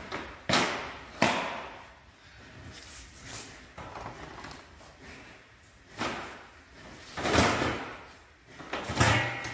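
Floor slats for a pig farrowing crate being knocked and set down onto their support beams: several sharp clacks and thuds of hard plastic and the black grid slat meeting the beams, with lighter shuffling and scraping between them.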